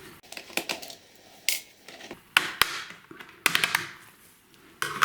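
Irregular sharp clicks and taps of hard plastic and a small screwdriver as the RAM access cover is taken off the underside of an Acer Nitro 5 laptop.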